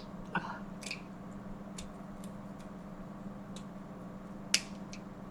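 Scattered light clicks and ticks, with one sharper click about four and a half seconds in, over a steady low electrical hum.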